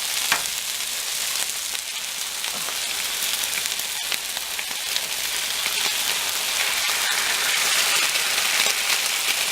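Food sizzling in duck fat on a hot Blackstone flat-top griddle: a steady sizzle with small pops and spits.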